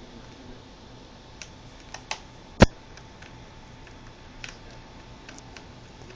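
Scattered small clicks and taps from a screwdriver and screws against a laptop's plastic screen casing as its bezel screws are removed, with one sharp, much louder click about two and a half seconds in.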